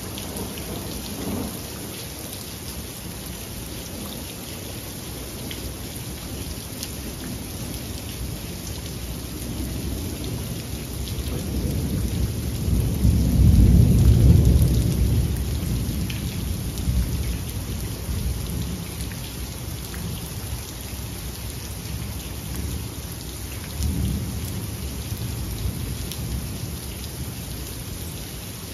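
Steady rain falling with scattered drop ticks. A long roll of thunder builds from about ten seconds in, is loudest around the middle and rumbles away over several seconds. Fainter rumbles come near the start and again near the end.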